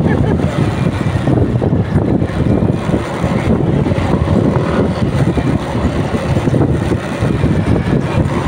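Motorcycle riding along: steady engine and road noise mixed with wind buffeting the microphone.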